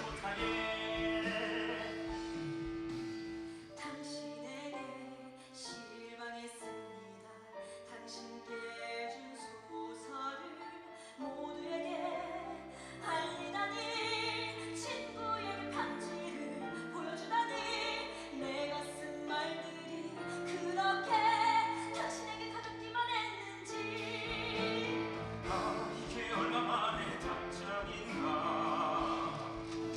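Musical-theatre singing with vibrato over an instrumental accompaniment.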